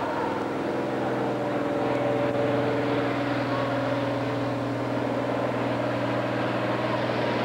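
International Harvester farm tractor's diesel engine under full load, pulling the sled in a tractor pull. It runs at a steady, even pitch.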